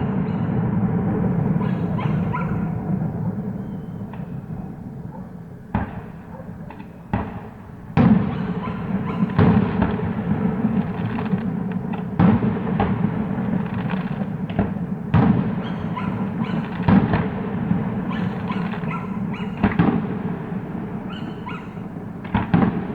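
Fireworks display: a dozen or so sharp shell bursts at irregular intervals, a second or two apart, over a steady low rumble.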